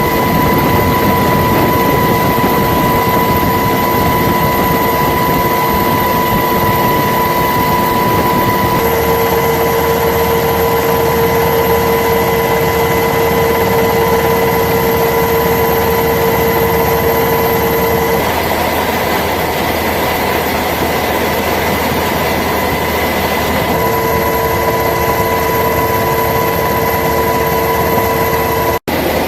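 Steady, loud engine noise with a constant high whine over it, like the cabin or deck noise of a turbine-powered aircraft. The whine changes pitch abruptly several times as the footage cuts between shots.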